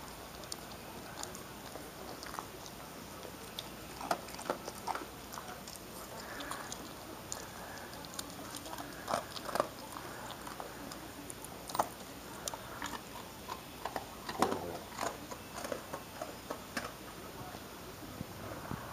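A dog crunching and chewing pieces of dog biscuit picked up off a carpet, in irregular crunches with a few louder ones scattered through.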